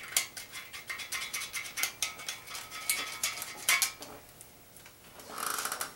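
Metal tools clinking and scraping against a bare engine block during cleaning: a string of irregular sharp clicks, then a short, fast rattle near the end.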